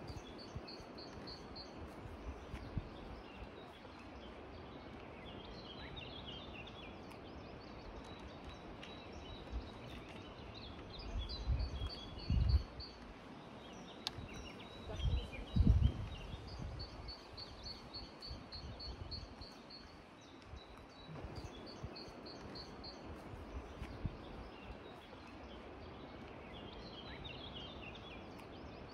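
Small birds singing in the open: short rapid trills of repeated high notes, again and again, over a steady background hiss. Twice around the middle, gusts of wind buffet the microphone with a low rumble, the loudest sounds heard.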